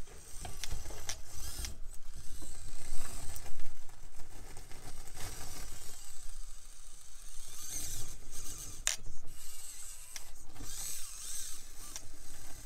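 Micro-scale RC rock crawler's small electric motor and gears whining in spurts, the pitch rising and falling with the throttle as it climbs over rocks. Scattered clicks and knocks of the tyres and chassis against the rock.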